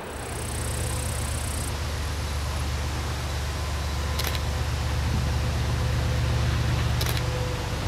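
Freight train locomotive running with a steady low drone, with two sharp clicks, one about four seconds in and one about seven seconds in.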